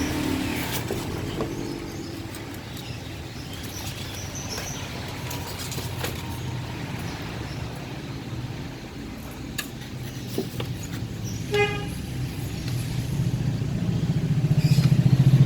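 Engine of a drilling machine running steadily with a low, rapid pulse, growing louder over the last couple of seconds. A short pitched tone sounds about two thirds of the way through.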